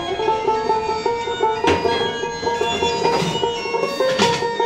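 Background music: a plucked-string instrument picking a fast run of short notes at a steady beat.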